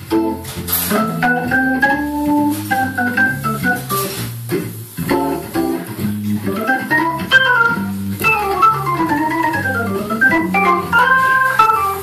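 Hammond organ played solo: low bass notes changing in steps under a right-hand melody line, which breaks into quick runs up and down the keyboard about halfway through.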